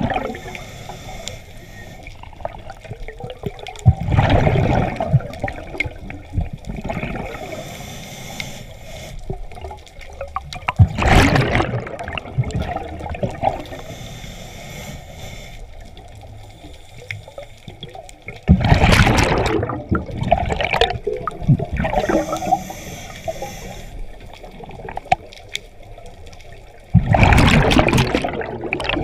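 Scuba diver breathing through a regulator underwater: four loud bursts of exhaled bubbles, about every seven seconds, with quieter hiss between them.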